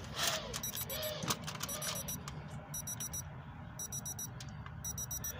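Digital meat thermometer's alarm beeping: quick runs of high-pitched beeps repeating roughly once a second.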